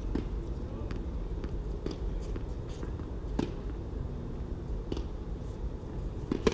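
Tennis rally: racket strings striking the ball with sharp pops about every second and a half, fainter ball bounces between, over a steady low rumble.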